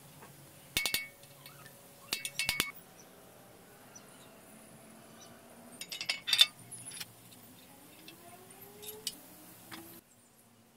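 Light metallic clinks and taps as motorcycle steering-head bearing parts and the steel steering stem are handled and fitted into the frame head tube, coming in short clusters with the loudest about six seconds in.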